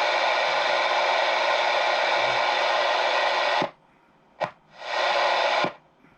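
CB radio static: a steady hiss from the receiver that cuts off abruptly, comes back for a short blip, then for about another second before cutting off again.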